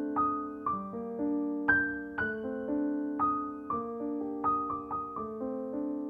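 Background music: a slow, gentle piano piece, with notes struck about twice a second over sustained lower notes.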